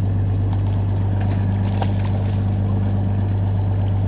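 Fishing boat's engine running steadily, a deep even hum, with a few light splashes and ticks from a landing net being worked in the water about two seconds in.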